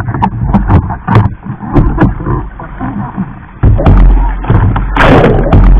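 Surf water churning and slapping around a capsized kayak, heard through an action camera's mic as loud, muffled rumbling with many sharp knocks. The rumbling jumps louder about three and a half seconds in, and a hissing surge follows about a second later.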